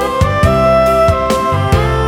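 Background music: sustained melodic instrument notes over a steady beat.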